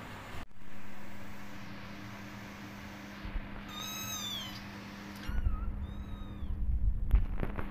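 A five-week-old kitten meowing, high-pitched: a longer meow about four seconds in and a shorter one about two seconds later, over a steady low hum. Low rumbling and a few sharp knocks come in toward the end.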